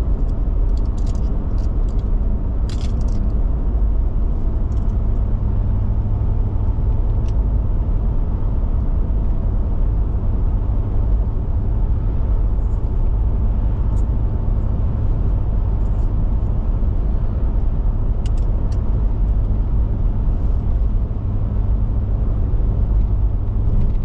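Steady road and engine noise inside a car's cabin while it drives at highway speed: an even low rumble, with a few faint clicks scattered through.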